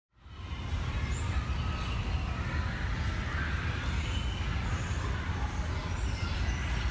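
Outdoor background ambience: a steady low rumble, like distant city traffic, fading in just after the start and then holding steady.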